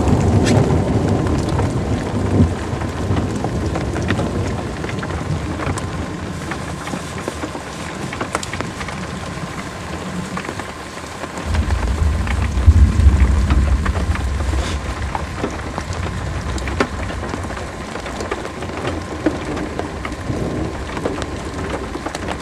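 Heavy rain pelting the car, heard from inside, with scattered sharp drop ticks. About halfway through, a low rumble of thunder comes in and lasts a few seconds.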